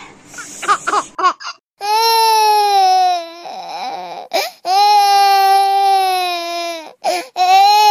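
A crying voice, like a baby wailing: a few short rising yelps, then three long held wails, each sliding down a little at its end.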